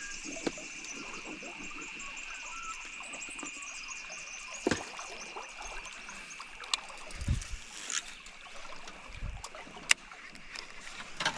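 Quiet ambience aboard a small fishing boat on a river: a steady high-pitched drone in the background, with a few soft knocks about five, seven and nine seconds in and a sharp click near the end.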